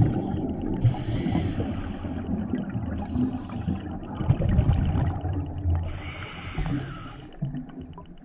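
Scuba diver breathing underwater through a regulator: repeated inhalations hiss for about a second each, between low bubbling rumbles of exhaled air bubbles.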